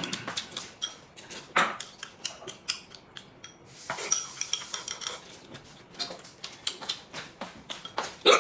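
Chopsticks clicking and scraping against a porcelain bowl in quick, irregular taps, mixed with the chewing and slurping of someone eating noodles.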